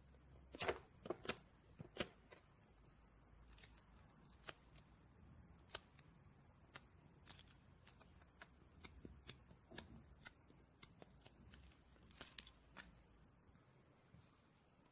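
Sponge slime being squeezed and worked by hand: faint, scattered crackles and small pops, with a quick cluster of louder ones in the first two seconds, then sparser.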